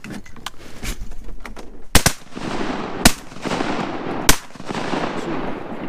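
Shotgun blasts at ducks coming in: three sharp reports about a second apart, the first one doubled, each followed by a long echo.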